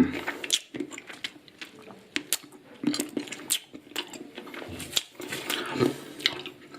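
A person chewing a soft, chewy strawberry candy cube close to the microphone: irregular wet mouth clicks and smacks.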